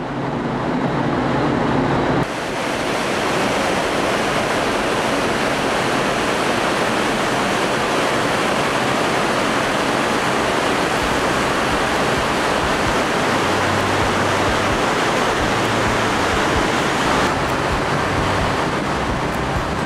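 Loud, steady rushing of sea water churned up by the six-metre propeller of a container ship in its wake at the stern. A low hum joins in about two-thirds of the way through.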